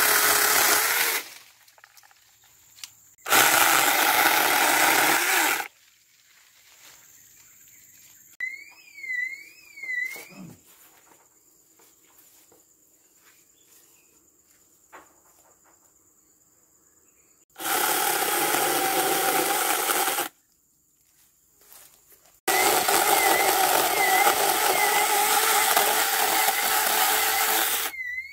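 Cordless 4-inch mini electric chainsaw running and cutting through tree branches in four bursts, the last and longest near the end.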